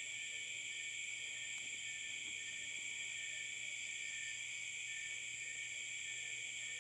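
Steady high-pitched background chirring, with a faint short pulse repeating about twice a second.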